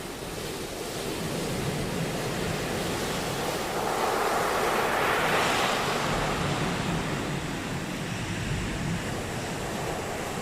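Sea waves breaking on a beach, a steady wash of surf with one wave swelling to its loudest about halfway through and then easing back.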